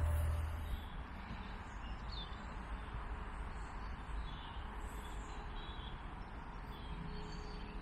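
Outdoor trackside ambience: a steady background hiss with a few faint bird chirps. A low rumble fades out within the first second.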